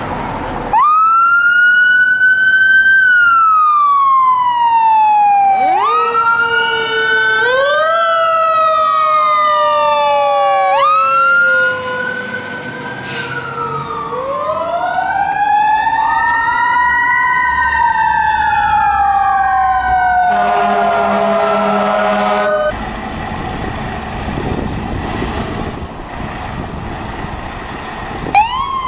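Fire truck sirens wailing, several overlapping rising-and-falling wails. A steady, pulsing horn blast sounds for about two seconds around twenty seconds in. A fresh siren wail starts near the end.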